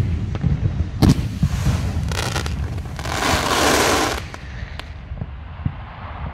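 Aerial fireworks display: a sharp shell burst about a second in, then a dense crackle lasting about a second from a sky full of crackling gold stars, then scattered pops over a low rumble.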